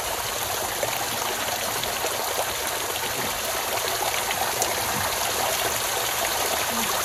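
Water streaming down through tree roots and splashing steadily into a pool of muddy floodwater.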